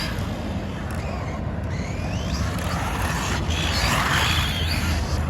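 Small brushless RC monster truck running on a 3S battery, its electric motor whining up in pitch as it accelerates, over steady tyre and rolling noise with a low rumble.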